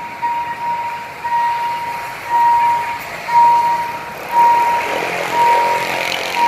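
Railway level-crossing warning signal sounding a steady high tone about once a second, each tone a little over half a second long, over road and train noise that swells louder about five seconds in.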